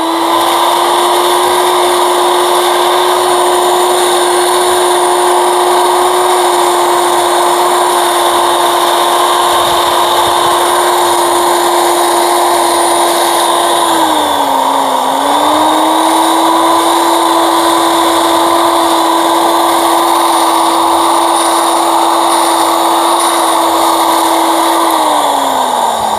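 Electric angle grinder running steadily as it smooths a goat's horn, a steady whine. Its pitch dips briefly about halfway through, and it winds down near the end.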